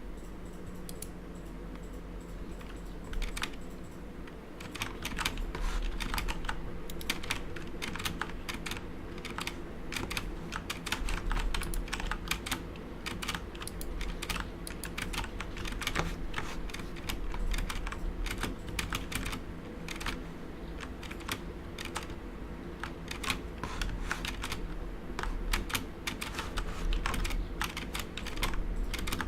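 Typing on a Corsair K70 mechanical keyboard with Cherry MX Brown switches damped by 40A-R rubber O-rings: a fast, irregular run of keystroke clicks. The typing starts sparsely and grows dense from about five seconds in.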